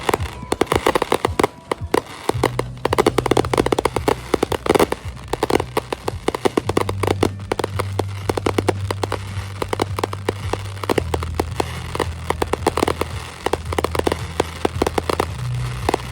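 Fireworks crackling: a dense, rapid run of pops and crackles, over low sustained background-music notes that change pitch every few seconds.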